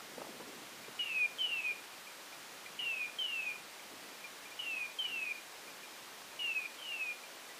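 Hunting dog's beeper collar sounding its point signal: pairs of short, high, falling beeps repeated about every two seconds, the sign that the dog is standing on point.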